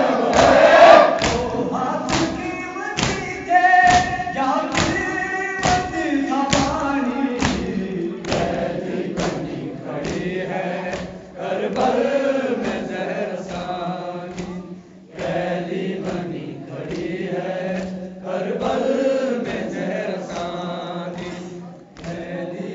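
Urdu nauha chanted by a lead reciter and a group of mourners together, kept in time by rhythmic chest-beating (matam), the hand strikes landing about twice a second.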